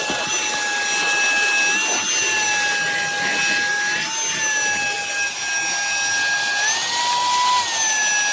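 Wkzay cordless handheld vacuum running, a high steady whine from its brushless motor over rushing air as it sucks up crushed cracker crumbs. The pitch wavers slightly and rises briefly near the end before settling back.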